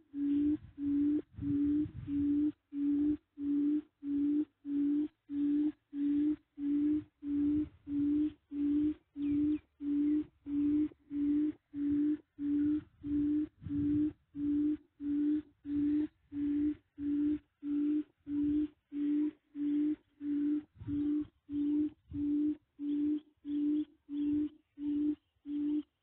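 A recorded bird call played on a loop from a small loudspeaker used as a trap lure: a low hoot repeated very evenly, about three every two seconds. It stops abruptly at the end.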